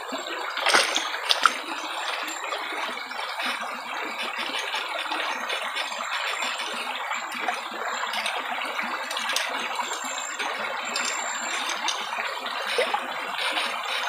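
Shallow, rocky stream flowing: a steady rush of water over stones, with a couple of small sharp knocks about a second in.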